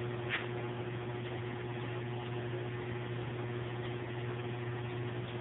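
Steady electric hum of a Forney concrete testing machine's hydraulic pump unit, running while a beam is held under light seating load.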